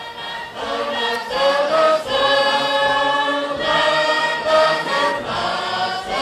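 A choir singing long held chords, the chord changing every second or two; it swells in over the first second.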